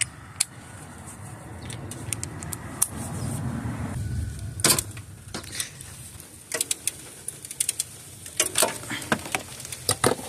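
Hand tools on a car's exhaust-bracket bolt: metal clicks and clinks as a wrench works a 14 mm bolt loose. A low rush of noise builds over the first few seconds, then sharp clicks come scattered and thicker near the end.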